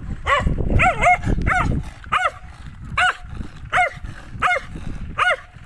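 A dog barking repeatedly: about nine short barks, each rising and then falling in pitch. They come quickly in the first two seconds, then about one every three-quarters of a second.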